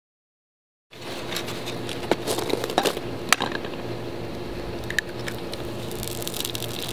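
An egg being cracked on a frying pan and dropped in: a few sharp taps and clicks over a steady background hiss and low hum, starting about a second in.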